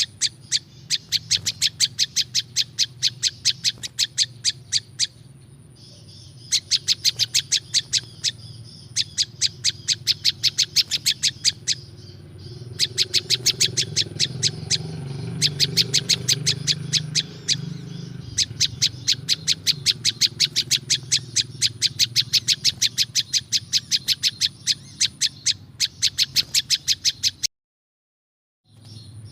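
Prenjak lumut song: long runs of rapid, sharp chirps, several a second, broken by short pauses, over a steady low hum and a thin high tone. The sound cuts out completely for about a second near the end.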